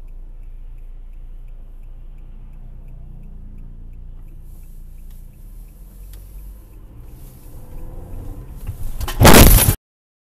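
Steady low rumble of a car driving, heard from inside the cabin, with faint, evenly spaced ticking for the first few seconds. About nine seconds in a sudden, very loud noise lasts about half a second and then cuts off.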